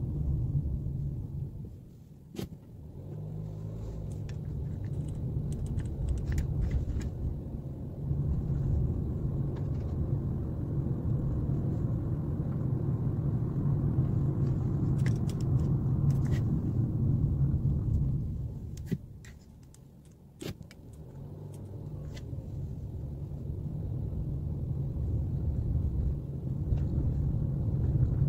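Car driving on a wet road, heard from inside the car: a steady low rumble of tyres and engine. It falls away briefly about two seconds in and again for a couple of seconds about two-thirds of the way through, with scattered light ticks.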